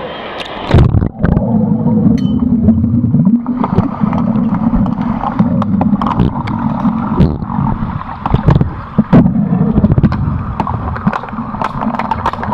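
Pool-hall noise at the surface, then a loud splash as the camera goes under about a second in. After that comes the muffled sound of an underwater hockey game heard below the water: a low rumble broken by many sharp clicks and knocks of the sticks and puck on the pool floor.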